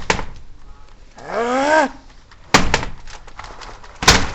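Door being forced shut: a string of knocks and thuds, the loudest near the end, with a short strained cry from a person's voice in the middle.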